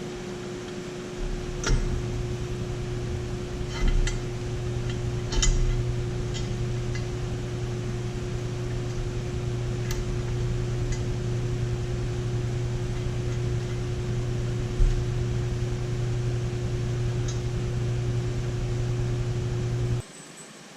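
A steady mechanical hum, one even pitch over a low drone, with a few sharp clicks and knocks. It cuts off suddenly near the end.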